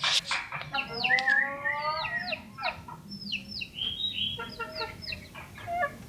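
Common iora (cipoh) singing actively: a quick, varied string of sharp whistled notes and downward slurs, with a longer rising call about a second in.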